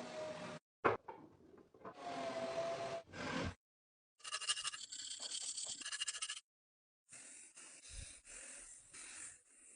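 Rubbing and scraping work noises from a restoration, in short clips separated by abrupt silent cuts. There is a sharp click just under a second in.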